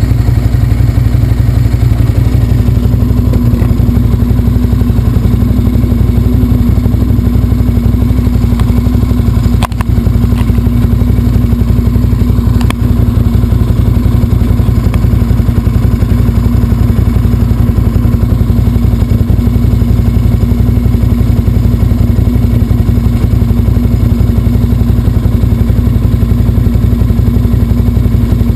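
Motorcycle engine running steadily at cruising speed, loud and close to the microphone, with two brief knocks about ten and thirteen seconds in.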